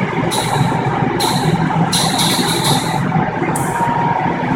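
Crematorium furnace running with a steady mechanical noise and a constant tone, broken by several short, sharp hisses about a second apart. The operator puts the noise down to a valve.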